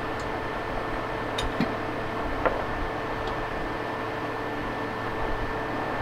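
Steady background hum and hiss with two faint constant tones, and a few faint clicks from hands handling the hammer-mill crusher's steel cover, about one and a half seconds in and again near two and a half seconds.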